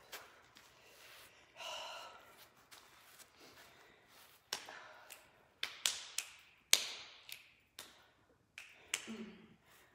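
Several sharp, separate taps and knocks spread over a few seconds, the loudest about two-thirds of the way through.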